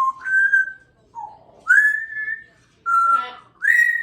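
African grey parrot whistling a series of about five short, clear notes, several sliding up at the start and then held, one or two with a raspy edge.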